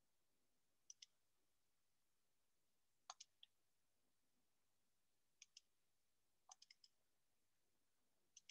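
Faint computer mouse clicks over near silence: five quick clusters, mostly pairs like double-clicks, with a run of three about three seconds in and four about six and a half seconds in.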